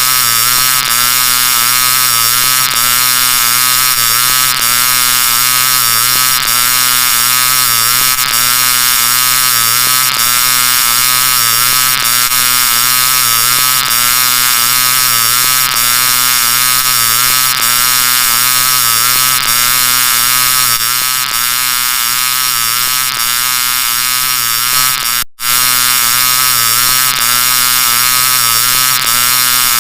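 Loud, harsh, heavily distorted electronic audio edit: a dense buzzing drone with many pitches stacked on top of each other, its pattern repeating about every two seconds. It cuts out for a split second about 25 seconds in, then carries on.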